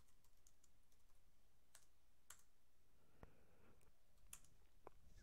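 Faint, scattered keystrokes on a computer keyboard as a terminal command is typed out and entered: about half a dozen short clicks at irregular intervals over a quiet room.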